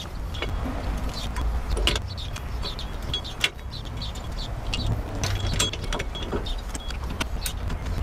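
Metal clicks and clinks of rear drum brake shoes and their springs being handled and fitted onto the brake backing plate, with one sharper click about three and a half seconds in. A steady low rumble runs underneath.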